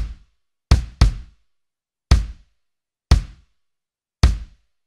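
A lone 22-inch kick drum (bass drum) struck six times with a pedal at an uneven pace, including a quick double stroke about a second in. Each hit is a short, deep thump that dies away fast, with silence between hits.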